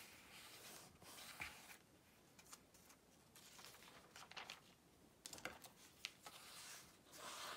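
Soft rustling of old book paper as pages are turned and smoothed flat by hand, with a few small taps and crinkles.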